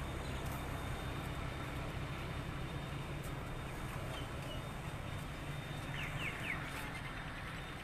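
Strong storm wind rushing and rumbling steadily over the microphone, with a few faint short chirps about six seconds in.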